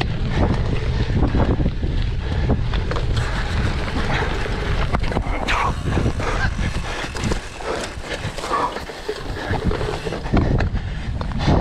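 Heavy wind buffeting the microphone over a low rumble, with scattered knocks and rattles from a cyclocross bike being raced over rough ground.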